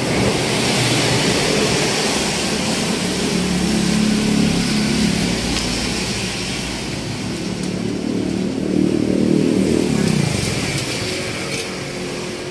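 Highway traffic passing: motor vehicle engines swell as they go by, about three to five seconds in and again about eight to ten seconds in, the second dropping in pitch as it passes, over a steady road hiss.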